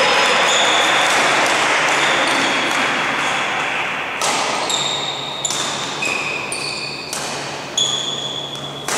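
Sports-hall sound during badminton play: a steady wash of noise for the first few seconds, then sharp racket strikes on shuttlecocks about every half second or so, each with a brief high ping.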